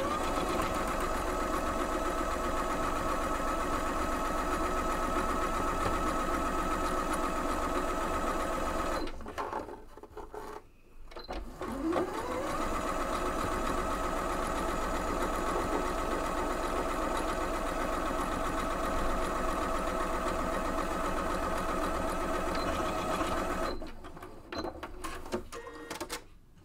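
Janome Skyline S3 computerized sewing machine stitching a straight seam through layers of cotton fabric. It speeds up with a rising whine, runs steadily for about nine seconds, and stops briefly. It speeds up again and runs about eleven seconds more before stopping near the end.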